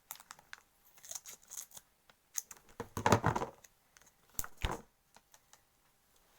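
Packaging crinkling and rustling in the hands as it is opened, with scattered sharp clicks; the loudest rustle comes about three seconds in.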